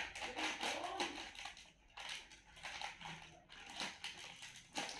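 A plastic snack packet crinkling and crackling as it is handled and cut open with scissors, in an irregular run of crinkles with a couple of sharper crackles near the end.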